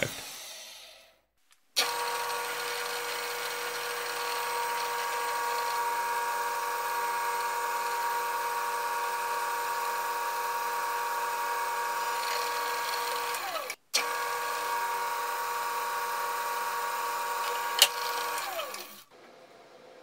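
Drill press motor running with a steady whine. It breaks off suddenly about two-thirds through, starts again, and then falls in pitch as it spins down near the end.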